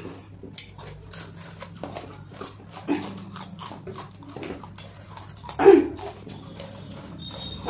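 Raw green chillies being bitten and chewed, a run of short crisp crunches and mouth clicks. A short vocal sound from one of the eaters a little before the end is the loudest thing.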